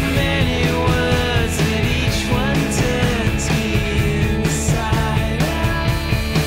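Rock band music with guitars and drums, a melody line gliding over a full, steady accompaniment.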